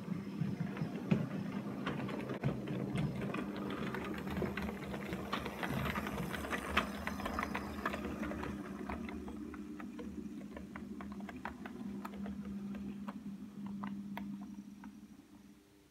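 00 gauge model train, the Hall class locomotive 'Olton Hall' hauling coaches, running past: a steady electric motor hum with irregular clicking of wheels over rail joints and points. It fades away near the end.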